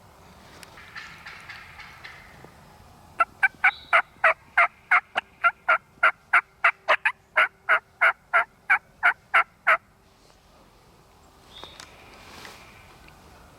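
Turkey yelping: a long run of about twenty loud, evenly spaced yelps, about three a second, that starts a few seconds in and stops abruptly about ten seconds in.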